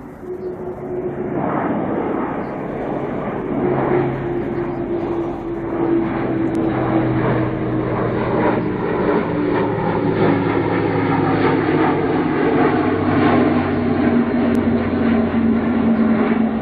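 Airbus A400M Atlas turboprop flying past, giving off its distinct hum: a clear tone that slides slowly down in pitch as the aircraft passes, over the steady engine and propeller noise. The sound builds over the first few seconds, then stays loud.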